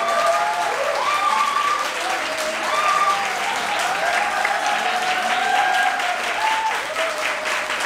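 Audience applauding steadily, with voices calling out over the clapping.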